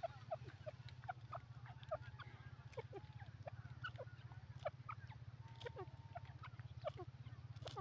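Birds chirping: many short, quick calls at varied pitches, often overlapping, over a steady low hum.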